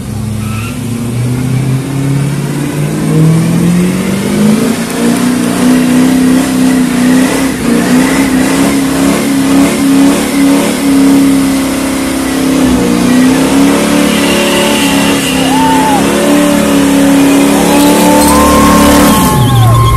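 Old American sedan's engine doing a burnout: revs climb over the first few seconds and are held high and steady while the tyres spin, then drop off sharply near the end. Short rising-and-falling squeals come in over the last few seconds.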